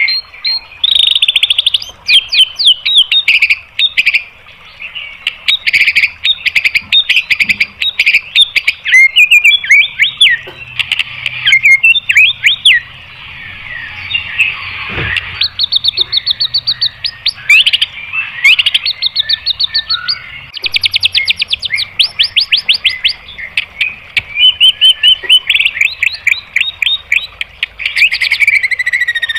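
White-rumped shama (murai batu) singing loudly in fast runs of rapidly repeated sharp notes, the rapid-fire 'tembakan' phrases, broken by short pauses.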